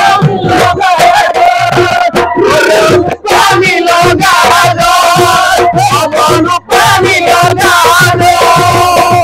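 Bihu folk music played live: a sung melody over a steady beat of dhol drums, with group shouts and voices joining in. The music breaks off for an instant twice.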